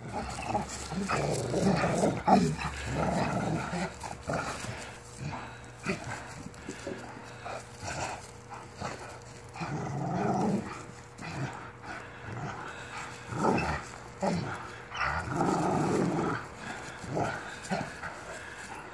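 Two pit bull pups play-growling in several bouts, each a second or two long, as they pull against each other in a rope tug of war.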